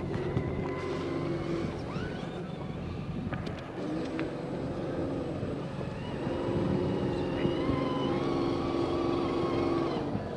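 Motors running in three stretches of a few seconds each, a steady low hum with a thinner high whine above it, breaking off about two seconds in, again briefly around four seconds, then running on until near the end.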